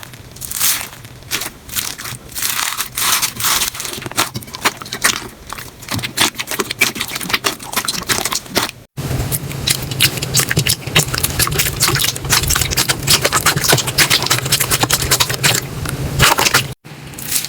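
Slime being squeezed and pressed, giving separate crackles and pops at first; after a sudden break just before halfway it turns to dense, rapid crackling, which stops at another sudden break near the end.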